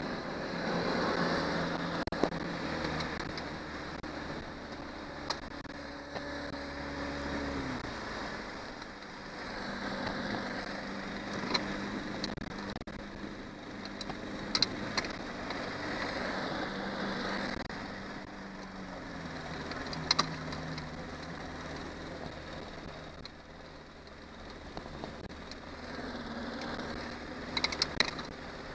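Johnson 90 hp outboard motor running with the boat under way, its pitch dropping about seven seconds in and again midway as the throttle is eased, then rising near the end. A few short sharp knocks sound over it.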